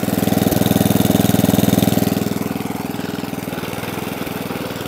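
Atco Balmoral cylinder mower running with its Tecumseh engine, louder for the first couple of seconds and then a little quieter. Mixed in is a noise that the owner puts down to the front roller, which he thinks wants greasing.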